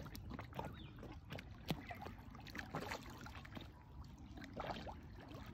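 Faint sloshing water with irregular small splashes and drips, as a horse wades and feeds chest-deep in a muddy dam.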